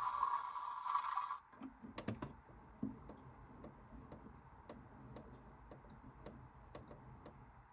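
Toy washing machine running, then cutting off sharply about a second and a half in. Faint, irregular small clicks follow, a few a second.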